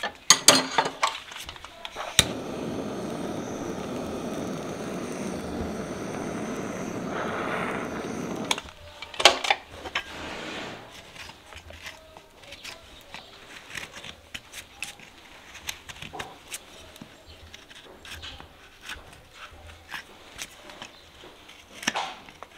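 Farrier's hand tools working the sole of a shod horse hoof: a steady scraping that starts about two seconds in and lasts about six seconds, then scattered light clicks and scrapes as the hoof is cleaned and pared with a hoof knife, with a sharp knock near the end.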